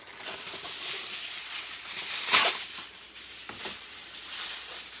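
Aluminium foil being pulled off the roll and torn off, crinkling and rustling, with a louder, sharper crackle about two and a half seconds in.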